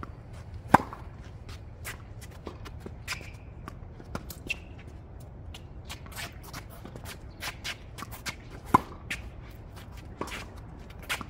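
Tennis ball struck by racket during a rally on a hard court: a loud close serve about a second in, fainter hits from the far end, and another loud close hit late on. Sneakers shuffle and scuff on the court between shots.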